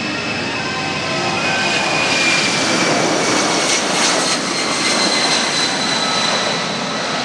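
Boeing C-17 Globemaster III's four Pratt & Whitney F117 turbofans on a low, gear-down pass: a steady jet rush with a high whine that slowly falls in pitch, loudest around the middle.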